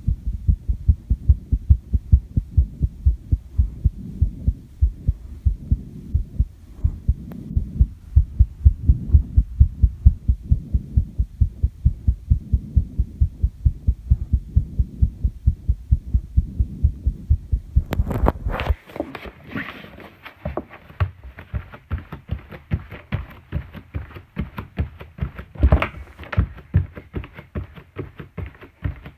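A human heartbeat picked up against the chest after squats and jumps: fast, evenly repeating deep thumps. About two-thirds of the way through, the deep thumping cuts off abruptly and gives way to thinner, higher-pitched clicking and rubbing.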